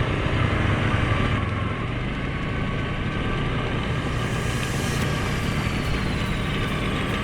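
Suzuki KingQuad 750 ATV's single-cylinder four-stroke engine running steadily, with a hiss of broad noise over it.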